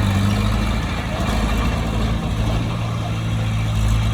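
Heavy earthmoving machine's engine running steadily at an even speed, with a strong low hum.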